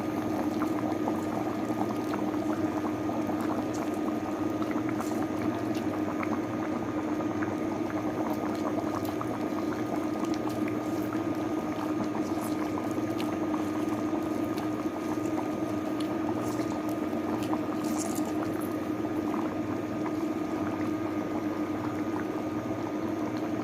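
Coconut-milk chicken curry simmering in a pot on the stove, bubbling with many small pops over a steady low hum.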